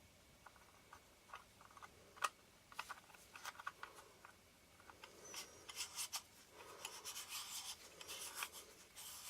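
Faint clicks and taps, then a stretch of rubbing and scraping, as small metal parts of a disassembled camera lens are handled and fitted.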